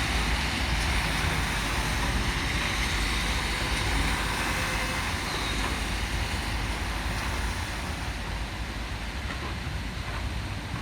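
Heavy downpour with wind rumbling on the microphone: a steady hiss of rain over a low rumble, easing slightly near the end.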